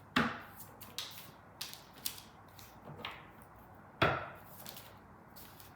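Tarot cards being handled on a table: about six sharp slaps and flicks of cards, the loudest about four seconds in.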